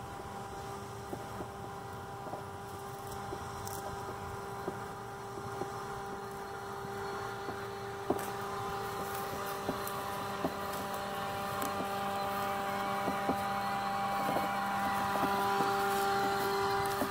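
L300 Elite robotic lawn mower mowing grass: a steady electric motor and blade whine with scattered sharp ticks, growing louder toward the end.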